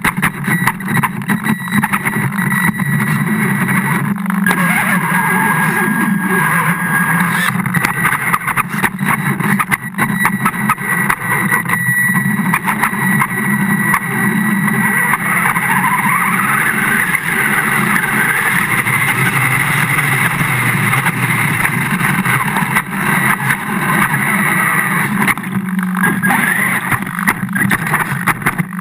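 Radio-controlled model's motor running steadily, heard up close from on board, with water churning as it drives through shallow lake water. The motor's pitch rises and falls briefly around the middle.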